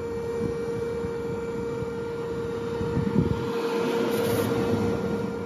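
Steady electrical hum of an EV fast-charging session: the DC fast charger and the charging Ford Mustang Mach-E's battery cooling run together, with one strong mid-pitched tone and fainter high tones over it. A short rush of noise swells about three seconds in and fades after about four and a half seconds.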